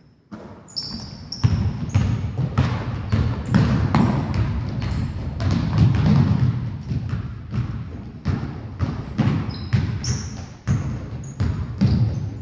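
Basketballs bouncing on a hardwood gym floor, several bounces a second, echoing in the large gym, with a few short high squeaks of sneakers on the floor.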